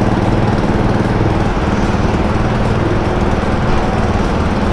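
Yamaha big scooters (a Majesty and a TMax) idling steadily, waiting to ride off a ferry's car deck, with the ship's own machinery noise beneath.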